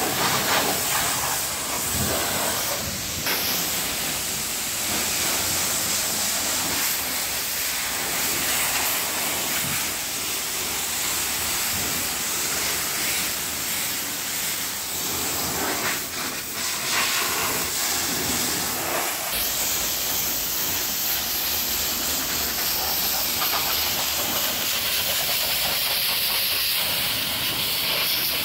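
High-pressure washer jet spraying water onto a car's tyre, wheel arch and bumper and the muddy ground beside it: a steady hiss of spray.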